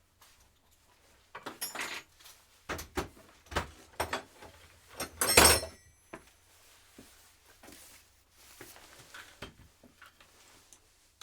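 A run of metallic clanks, knocks and rattles as metal parts and tools are handled and set in place. The loudest clank comes about five and a half seconds in and rings briefly. After that only faint scattered knocks follow.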